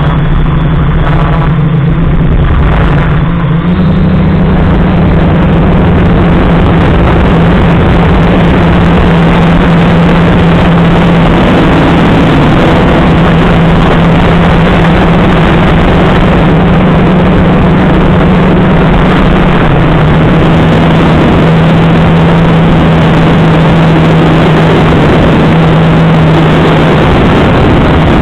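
FPV quadcopter's electric motors and propellers, heard from the camera on board: a loud, steady buzzing hum with rushing air noise. The pitch steps up slightly about four seconds in and dips again later.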